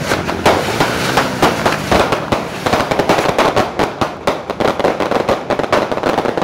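Fireworks and firecrackers going off in a rapid, continuous string of loud bangs and crackles.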